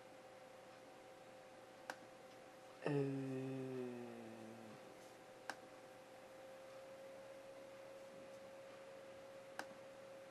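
Laptop trackpad clicked three times, spread across a few seconds. About three seconds in, a sudden low tone with several overtones sounds, slides slightly down in pitch and fades over about two seconds, over a faint steady whine.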